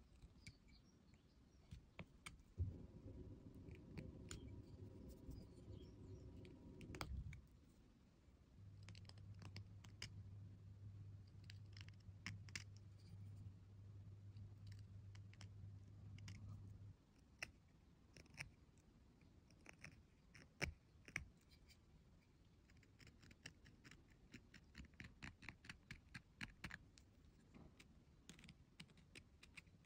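Carving blade cutting and scraping an avocado seed: faint small clicks and scratches, denser and more rhythmic in the second half. A low hum sounds under the first half.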